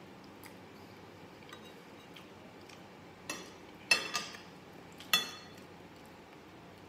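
Metal spoon and fork clinking against a glass serving bowl. There are four short, ringing clinks between about three and five seconds in, and the second one is the loudest.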